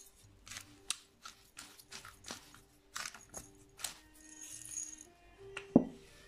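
Ground spice being shaken and tapped out of its container over a glass mixing bowl: a string of light taps and rattles, with a louder knock near the end. Soft background music plays under it.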